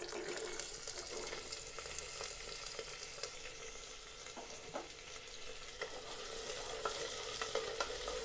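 Taro pieces sizzling in hot oil in a pressure cooker pot. The sizzle starts suddenly as they drop in, and a spatula knocks against the metal as they are stirred.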